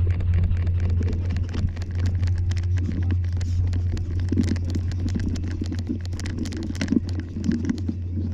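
Wind noise on a handheld 360 camera's microphones: a steady low drone, with scattered clicks from footsteps and handling.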